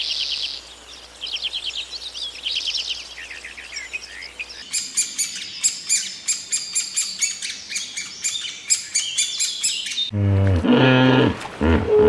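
Songbirds chirping: trilled phrases at first, then after a sudden change a dense run of rapid, high-pitched chirps. About ten seconds in, a louder, lower pitched sound cuts in.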